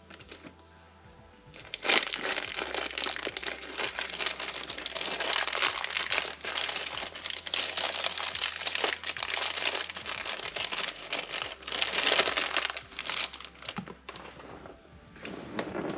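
Crinkling and rustling of packaging being handled. It starts about two seconds in, goes on as a dense run of quick irregular crackles, and dies down near the end.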